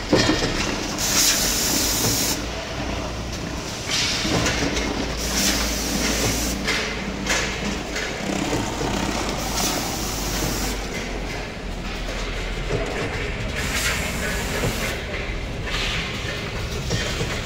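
Pineapple crushing and pulping machines running: a steady low electric-motor hum with the clatter of the works, and stretches of hissing noise that come and go every few seconds.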